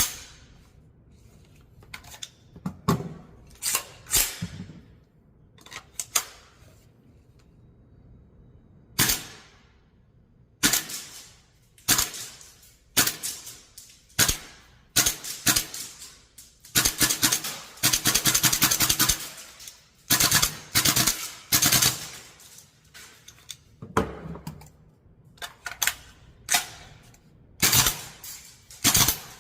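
VFC AR-15 gas blowback airsoft rifle firing, each shot a sharp crack with its bolt cycling. Single shots come at uneven gaps, then a rapid burst of about three seconds from about 17 seconds in, followed by short strings of shots.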